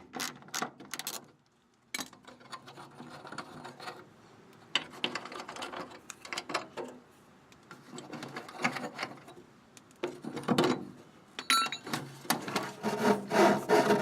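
Hand tools working on the taillight stalk mount of a Model A Ford as the backing plate and stalk are unbolted from the fender: irregular metal clicks, scraping and rattling, with a brief squeak near the end.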